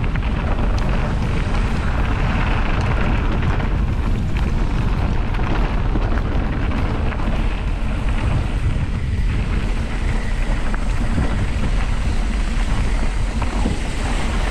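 Wind buffeting a GoPro action camera's microphone on a moving mountain bike: a steady, heavy rumble peppered with small clicks and rattles from the bike.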